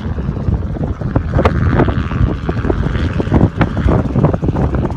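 Wind buffeting the microphone in irregular gusts, with the engine and rotor of a small helicopter droning in the distance as it approaches.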